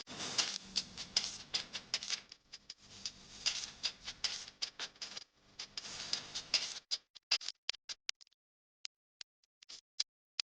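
A person eating close to the microphone: a dense run of sharp clicks and smacks from mouth and utensils, thinning to scattered single clicks after about seven seconds.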